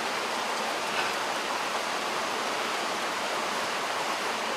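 Steady rushing of water flowing over rocks.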